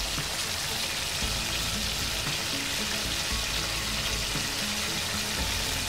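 Marinated chicken drumsticks and thighs sizzling steadily as they shallow-fry in hot oil in a pan, second side down, with faint background music.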